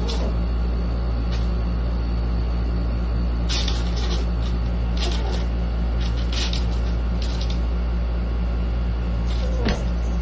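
Steady low rumble with a constant hum, and a few faint clicks and rustles scattered through it.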